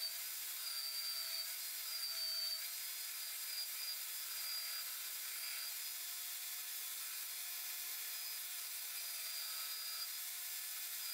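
Belt sander running steadily while a piece of spruce is sanded against its belt, a hiss of abrasive on wood with a high whine that wavers slightly as the wood is pressed and moved.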